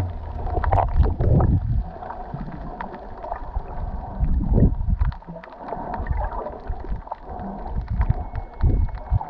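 Muffled water noise recorded underwater: irregular low rushing surges of water moving past the camera as the swimmer strokes, with scattered sharp clicks throughout.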